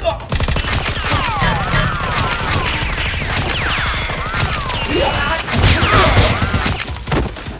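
Dubbed-in movie gunfire sound effects: a fast, continuous stream of shots mixed with zipping, whizzing sweeps that bend down and up in pitch, added over the firing of toy foam blasters.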